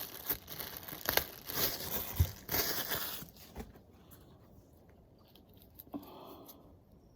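Crinkling and rustling with a few sharp clicks for about three seconds, like packaging being handled, then it drops to faint handling sounds.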